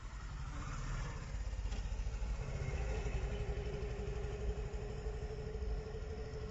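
Motorcycle engine running while riding, with low wind rumble on the microphone; about two and a half seconds in, a steady engine whine comes in and rises slightly in pitch.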